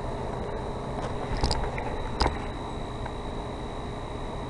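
Steady background hiss and low rumble with a constant thin high-pitched whine, broken by two small clicks about one and a half and two and a quarter seconds in.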